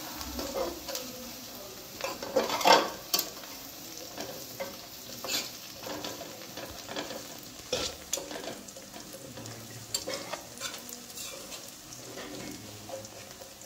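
Garlic frying in mustard oil, sizzling steadily while a spatula stirs and scrapes the pan in irregular strokes, the loudest about three seconds in.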